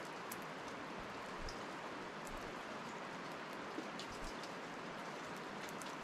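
Steady outdoor hiss that sounds like rain, with scattered small sharp clicks.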